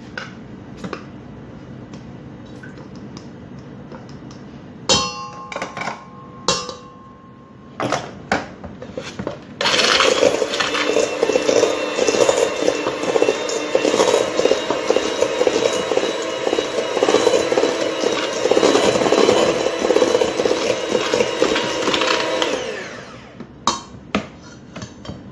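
Electric hand mixer beating butter and sugar in a stainless steel bowl. It starts about ten seconds in, runs steadily for about thirteen seconds, then is switched off. Before it come a few knocks and clinks against the bowl.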